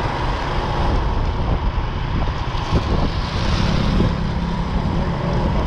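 Riding noise from a scooter: wind rushing over a handlebar-mounted microphone, with the scooter's small engine and its tyres on the wet road beneath it.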